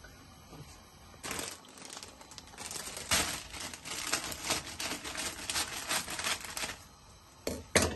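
Plastic tortilla-wrap bag crinkling as kitchen scissors cut it open, from about a second in until almost seven seconds, with many small snips and crackles. Two sharp knocks near the end.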